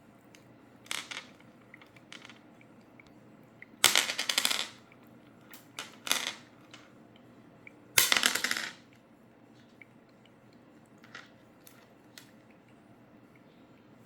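Several short rattling clatters, each made of rapid clicks and lasting under a second; the two loudest come about four and eight seconds in.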